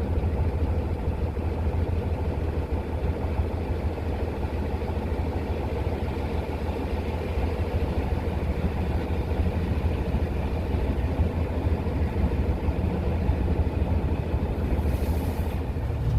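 Large diesel farm-equipment engine running steadily, a low, even drone.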